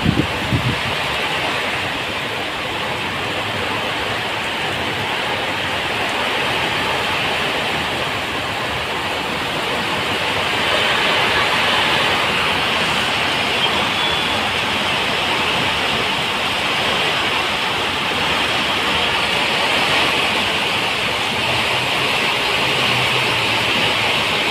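Very heavy rain pouring onto a road, a steady rushing hiss throughout. A few short low thumps sound in the first second.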